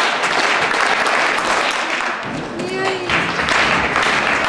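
Spectators clapping steadily through a high jumper's run-up, with a brief pitched, wavering call about two and a half seconds in.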